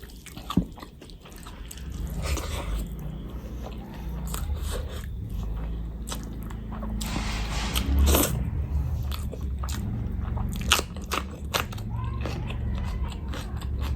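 Person chewing and biting food, with many sharp mouth clicks and a louder crunchy stretch about seven seconds in.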